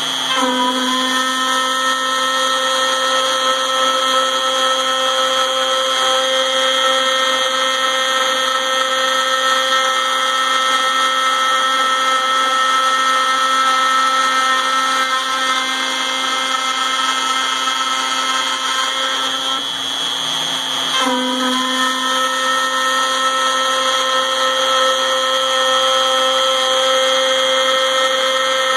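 Router spindle on a MillRight Mega V CNC machine running at its lowest speed setting, dry-milling an aluminum plate without coolant: a steady high-pitched whine mixed with cutting noise. About twenty seconds in the sound briefly drops, then the whine rises back up.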